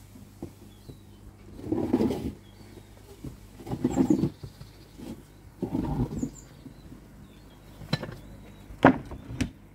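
A plastic Bakki shower tray being handled and set down on its base: three short scuffing sounds about two seconds apart, then a few sharp hollow knocks near the end as the tray settles into place. A steady low hum runs underneath.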